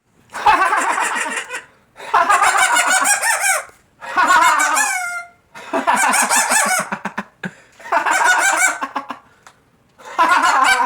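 Pet parrot squawking loudly, in a string of long, wavering calls, each about a second and a half, with short pauses between them.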